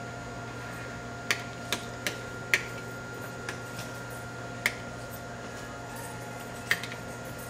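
Several sharp clicks at irregular intervals, seven or so, from controls on bench test equipment being worked by hand. Under them runs a steady electrical hum with a faint high steady tone.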